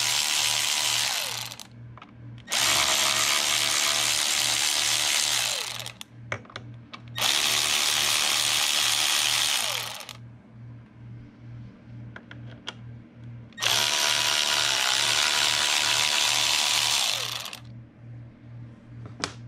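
Handheld power drill/driver run four times for about three to four seconds each, winding down at the end of each run, backing out the bolts of a Tremec TKO transmission's input shaft bearing retainer.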